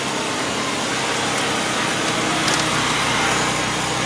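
A small engine running close by over the steady din of a busy market, its hum strongest in the middle seconds.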